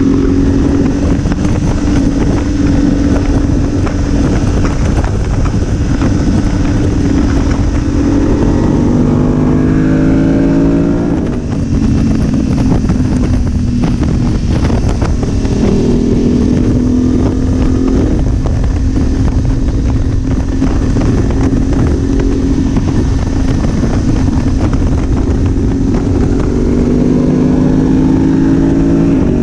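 2019 BMW F850GS Adventure's parallel-twin engine running under way, its pitch climbing steadily for about ten seconds, dropping briefly near the middle, then holding fairly steady before climbing again near the end. A steady low rushing noise runs underneath.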